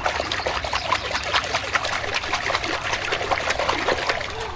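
Water running and splashing over a toy as it is rinsed, a steady trickle dotted with small droplet splashes that fades near the end.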